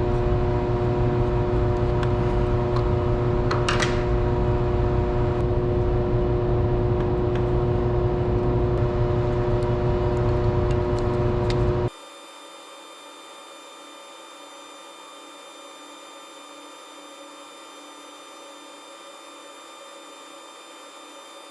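Loud, steady machinery hum with several fixed tones and a deep rumble, with a brief rattle about 4 s in. About 12 s in it cuts abruptly to a much quieter, thinner hum with steady high tones.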